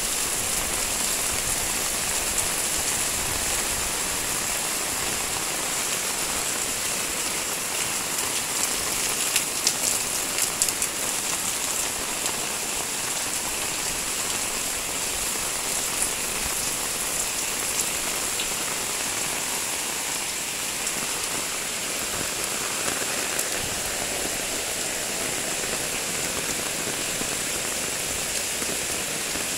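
Heavy tropical rain pouring steadily onto roofs and a paved street, with water running off the roof edges. A few sharper taps come about ten seconds in.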